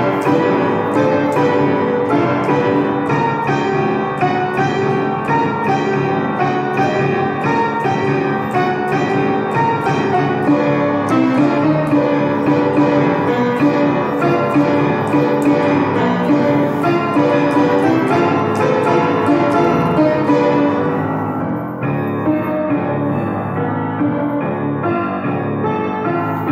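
Piano music with a quick run of struck notes; about four-fifths of the way through it softens and loses its brightest high end.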